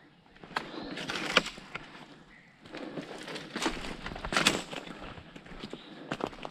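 Footsteps crunching over leaf litter, pine needles and small sticks on a forest floor, coming in irregular bursts of crackles and sharp snaps.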